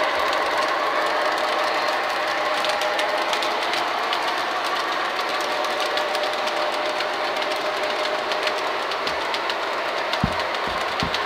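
O-gauge model diesel locomotive and its freight cars running past: a steady motor whir with rapid light clicking of metal wheels over the three-rail track. A few low knocks come near the end.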